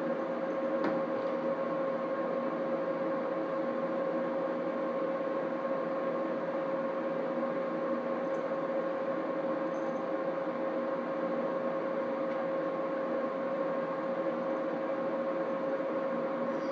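Steady machine hum with a constant pitch, and a faint tick about a second in.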